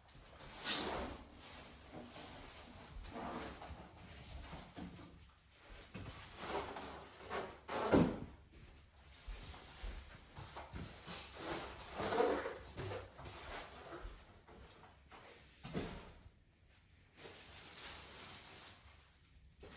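Irregular handling noises: scattered knocks and scrapes with rustling in between, the loudest knocks about a second in and near the middle.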